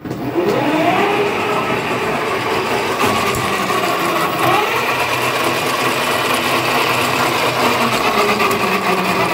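Electric drive motor fitted to a motorcycle's rear wheel, spinning up on the throttle. It whines, rising in pitch over about the first second, then runs steadily.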